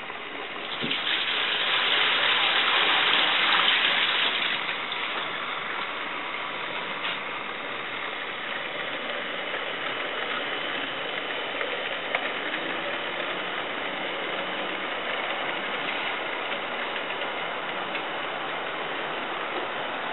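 Model train running past on its track, a steady rolling rattle of wheels on rail, louder for the first few seconds as the locomotives go by and then evening out as the freight cars follow.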